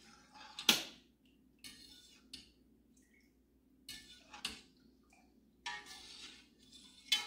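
A spoon stirring milk in a cast iron pot, clinking against the pot: a sharp clink about a second in and another near the end, with soft scrapes and knocks between.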